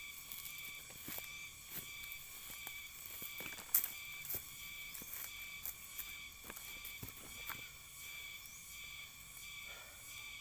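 Footsteps in rubber boots crunching and rustling through dry grass mulch, irregular crackles with one louder crunch about four seconds in, settling as the walker squats down near the end. Behind them, a steady high drone of insects.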